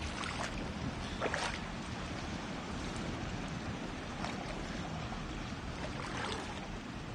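Shallow seawater sloshing with a steady rush, broken by a few brief splashes, the loudest about a second and a half in, as someone wades among rocks in a tide pool.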